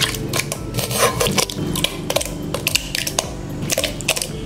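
Handfuls of raw, washed goat intestine and lung dropped into an aluminium pressure cooker: irregular wet slaps and clicks of the pieces landing on the pot and on each other.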